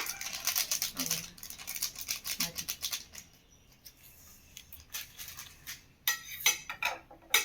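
Rapid crackling and clicking of instant noodles being mixed with their spice seasoning on a plate, dense for about three seconds, then a few louder bursts near the end.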